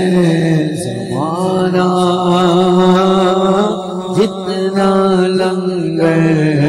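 Male naat reciter singing unaccompanied into a microphone, drawing out long, wavering melismatic notes with no clear words, over a steady low drone.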